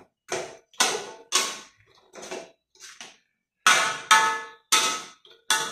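Metal spatula clanking against a metal wok while stir-frying, about ten strikes at roughly two a second with a short pause near the middle, each with a brief metallic ring.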